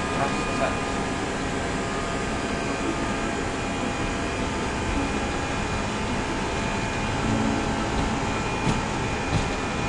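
Flight-deck noise of an Airbus A320-214 accelerating at flex takeoff thrust: its CFM56 engines and the rushing air give a steady noise, with a few faint steady whining tones over it.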